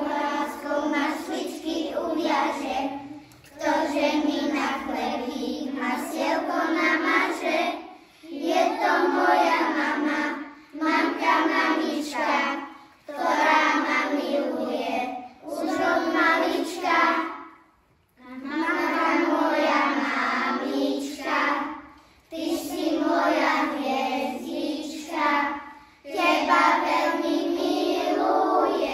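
A group of young kindergarten children singing a song together, in phrases a few seconds long with short breaks between.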